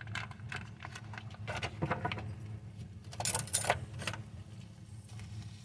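Hands at work preparing food: scattered small clicks and clinks, with two short, loud hissing rustles a little past three seconds in, over a low steady hum.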